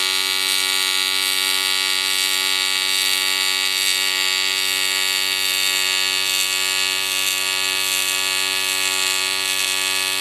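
AC TIG welding arc on aluminum, a steady, unbroken electric buzz with many even overtones as a bead is laid along the joint.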